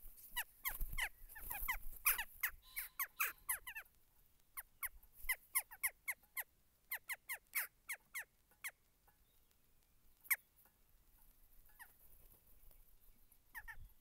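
Jackdaws calling: quick runs of short, sharp calls that fall in pitch, densest in the first four seconds and again from about five to nine seconds, then a few single calls spaced further apart.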